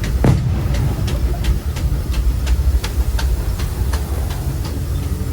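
Disneyland Railroad train running along the track: a steady low rumble with an even clicking about three times a second. There is a brief falling whine just after the start.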